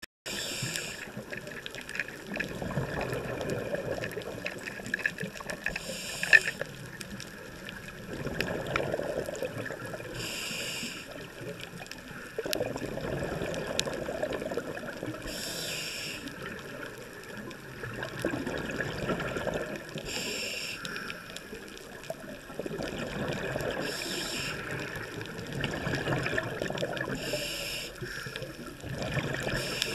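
A scuba diver breathing through a regulator underwater: a short hiss on each inhale, about every four to five seconds, followed each time by a longer gurgling rush of exhaled bubbles.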